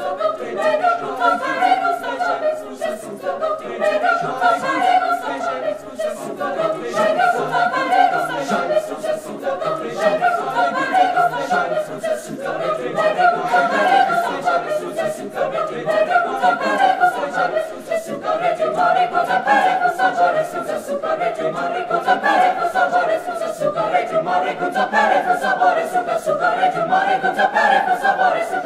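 School choir singing, many voices together in smooth sustained lines that rise and fall without a break.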